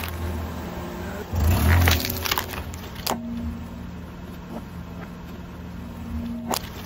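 A car's engine running as its tyre rolls onto plastic-wrapped snack packets, with a loud low surge and crackling of the packets about a second and a half in. From about three seconds in, only a quieter, steady engine hum.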